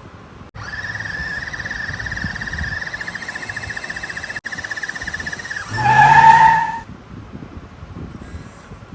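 RC scale off-road truck's electric motor and gearbox whining steadily under load, a high whine with a fast flutter. Near the six-second mark it surges louder with a rising lower tone, then cuts out.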